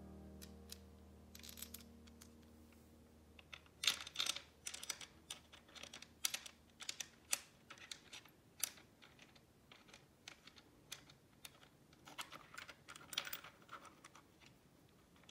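Irregular light clicks and taps of small saddle-clamp parts on a bicycle seatpost head being fitted and adjusted by hand, with a few sharper clicks among them.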